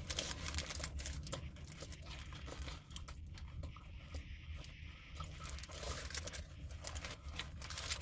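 Paper sandwich wrapper crinkling and rustling in the hands with quick, irregular crackles, over a steady low hum.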